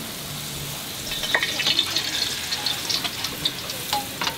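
Hot oil sizzling and crackling around a luchi deep-frying in a karahi, busier from about a second in. A perforated metal ladle knocks against the pan a few times.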